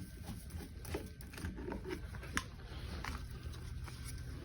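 Faint, scattered clicks and light scraping of hands handling a check valve's compression nut and fitting on the pipe.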